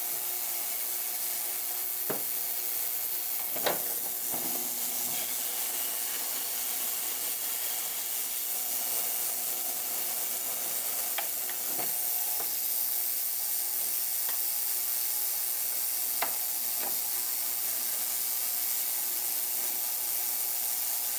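Ultrasonic parts cleaner running, a steady hiss from the agitated cleaning solution, while a brush scrubs a revolver grip panel in the bath. A few sharp clicks and taps of the brush and parts against the tank.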